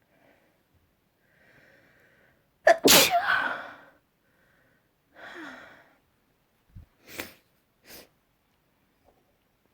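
A person sneezes once, loudly, about three seconds in, after a short faint intake of breath; a softer breath and two short noisy breaths follow.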